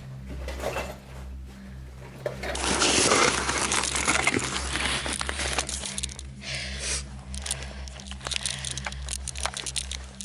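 Close handling noise: dense rustling and crinkling with many small clicks, starting about two and a half seconds in, as a camera held by hand is moved about against clothing. A steady low hum runs underneath.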